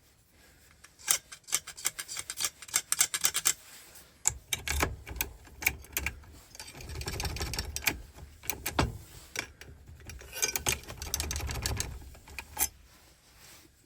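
Two runs of rapid metallic clicking, with duller rubbing and scraping between them: a freshly cut key being worked in and out of a Ford 5-pin ignition lock cylinder, feeling for where it binds.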